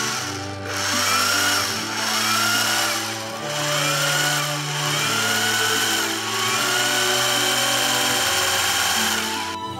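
Singer 411G sewing machine running at speed with its covers off, a steady mechanical whir and clatter: freshly degreased and re-oiled, running smoothly. Background music plays underneath, and the machine noise cuts off near the end.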